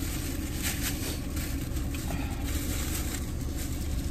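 Steady low rumble inside a car's cabin, with a few faint rustles.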